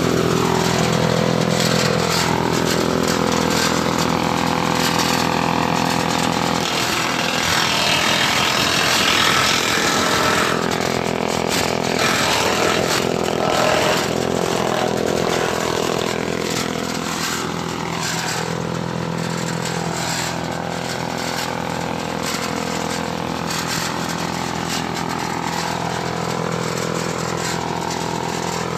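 Grass chopper machine running steadily with an even motor hum. A louder, rougher rushing noise sits on top of it from about six to fourteen seconds in.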